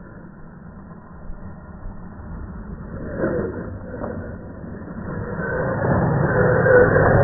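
Traxxas Stampede VXL brushless RC monster truck driving on a dirt track, getting louder as it approaches and passes close, its motor and gears whining over the scrabble of its tyres on dirt.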